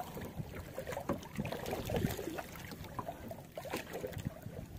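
Choppy sea water sloshing irregularly against the hull of a small outrigger boat as it drifts with the engine off.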